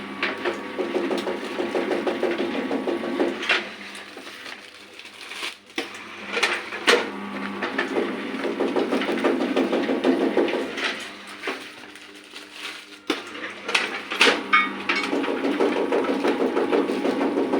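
Baglog press machine for mushroom growing media working in repeated cycles: three runs of a few seconds each of fast, even mechanical rattling as bags are compacted, with sharp knocks and clacks between the runs.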